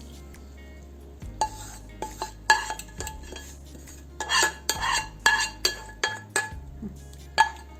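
A metal spoon clinking and scraping against cookware as fried garlic is spooned out and spread over chicken fatteh. The sharp clinks start about a second and a half in and come irregularly, some of them ringing briefly.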